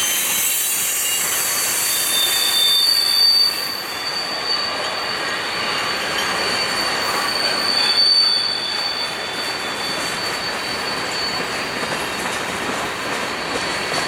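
Freight train rolling past, its wheels squealing with a steady high pitch over the constant rolling noise of the cars, with some rhythmic clatter near the end.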